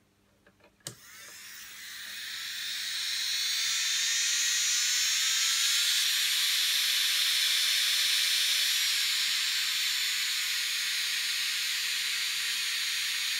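A click, then the Saeshin Strong 210 nail drill's 105L handpiece micromotor (64 W, 35,000 rpm) spins up over a few seconds as the speed knob is turned up, and runs at full speed with a steady high whine.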